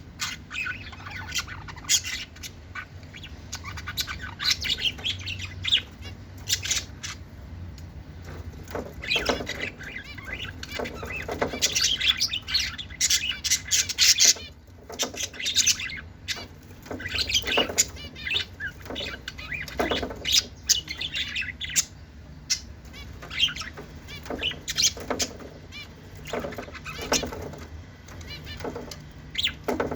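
Lovebirds chirping and squawking in rapid, irregular, shrill bursts, over a steady low hum.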